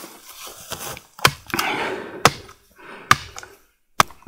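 Axe blows on wood: a few sharp knocks about a second apart, with rustling in between, as a board is worked into a stake.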